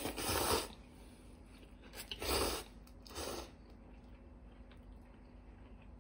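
A person eating instant noodles with chopsticks: three short slurps, the first at the start, then two more about two and three seconds in.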